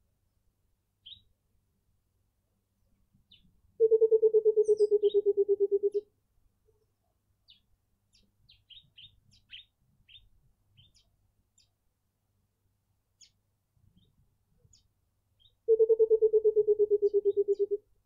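Burchell's coucal calling twice, each call a rapid run of about twenty low hoots lasting about two seconds and falling slightly in pitch; the first comes about four seconds in, the second near the end. Small birds chirp faintly in between.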